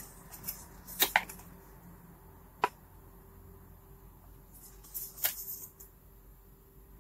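A folded card leaflet being unfolded and handled: short crisp paper rustles about a second in and again around five seconds, with a single sharp tick in between.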